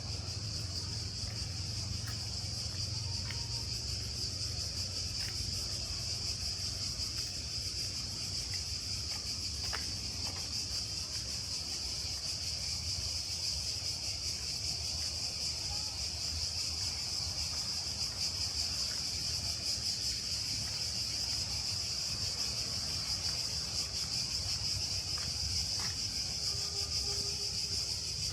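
Cicadas buzzing in one steady, unbroken chorus, with a low steady rumble underneath.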